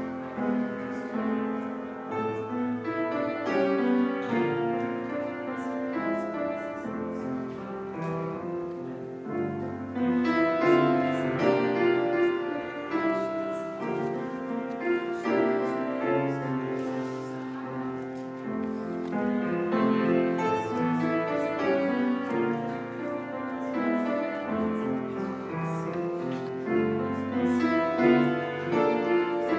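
Instrumental keyboard music, a slow run of sustained chords changing every second or so.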